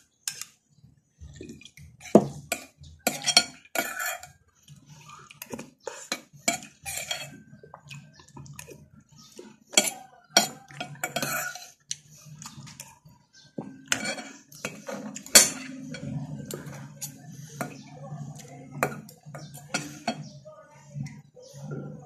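Metal spoon and fork clinking and scraping against a bowl and plate during a meal: irregular sharp taps, a few louder clinks at a time.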